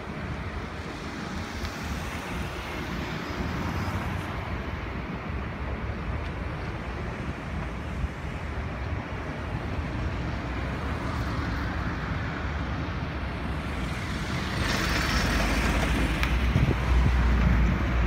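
Road vehicle noise: a steady rumble that grows louder, swelling near the end as a vehicle comes close.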